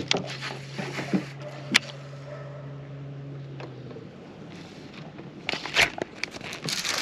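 Electric trolling motor humming steadily, stopping a little past halfway through, with a few sharp clicks and knocks.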